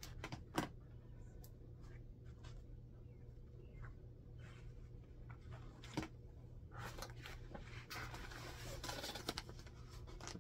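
Faint handling noises of a diamond painting canvas being moved about: scattered rustling and light knocks, with a sharp click about six seconds in and more continuous rustling near the end.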